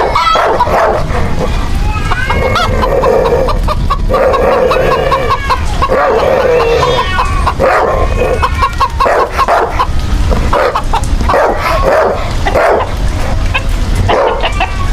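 Loud alarm ringtone made of farm-animal calls: chickens clucking and a rooster crowing, with dog barks mixed in.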